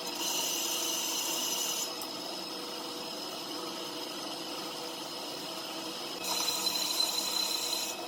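A workshop tool works a wheel rim in two bursts of hissing, rasping noise, each about a second and a half long, one near the start and one near the end, starting and stopping abruptly over a steady background hum with faint high tones.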